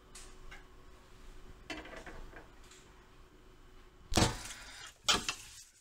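Kitchen handling noises: metal tongs lightly clicking against a ceramic plate, then two loud scraping knocks about a second apart near the end.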